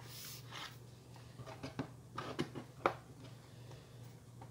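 Aluminium bottom case of a 2018 15-inch MacBook Pro being pressed down by hand so its retaining clips snap into place: a few faint clicks and taps between about one and a half and three seconds in, the sharpest near three seconds.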